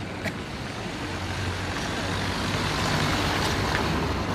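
A motor vehicle passing close by, its noise swelling to a peak about three seconds in and then fading, over street noise.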